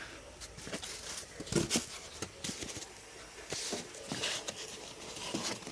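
Handling and unpacking noises: irregular knocks, clicks and rustles of packaging and parts being moved, the loudest pair about one and a half seconds in.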